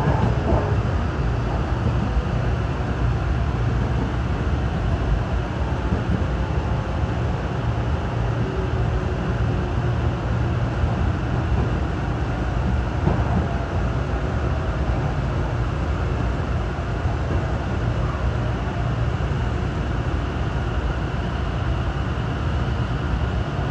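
Tobu Skytree Line commuter train running, heard from inside the carriage: a steady rumble of wheels on rail, with a faint motor whine that falls gently in pitch as the train slows.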